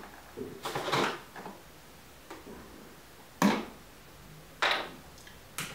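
Metal spoon knocking against a plastic tub as sticky honey is scraped off it: four short clinks spread out, the first about a second in.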